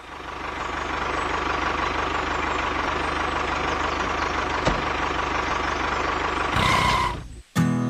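Diesel tractor engine running steadily with a fast low knocking beat. It fades in at the start, a brief higher tone sounds near the end, and then it cuts off suddenly.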